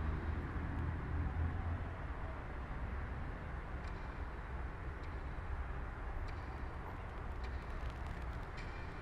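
A steady low rumble under a soft hiss, with a few faint ticks in the second half.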